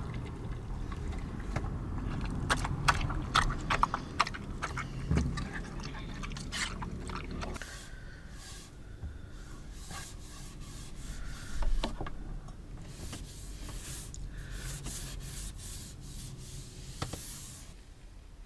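A series of small clicks and scrapes from things being handled, thickest in the first few seconds, with a low thump about twelve seconds in.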